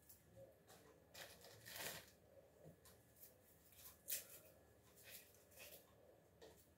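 Dry garlic skins crackling and rustling in the fingers as garlic cloves are peeled by hand. The sound comes in short, faint bursts, the sharpest crackle about four seconds in.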